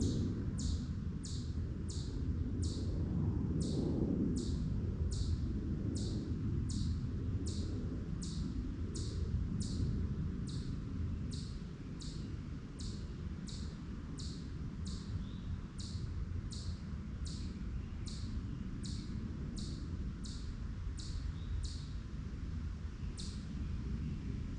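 A small animal's sharp, high chip call, repeated very evenly about one and a half times a second, with a steady low rumble underneath.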